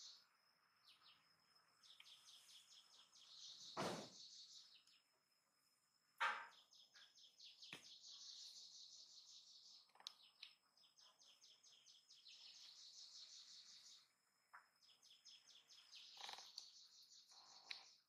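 Faint, high, rapidly pulsing trills repeated in bouts of two to four seconds with short gaps between them, and a few soft knocks, the sharpest about six seconds in.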